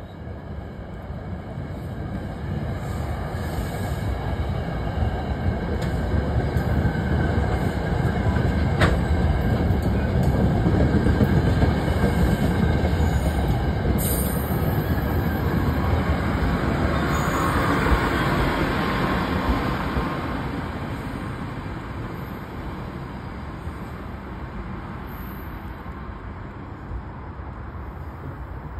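SEPTA push-pull commuter train coaches rolling past close by, a steady wheel-and-rail rumble with a faint high squeal. It builds to its loudest in the middle and fades over the last several seconds as the train moves on.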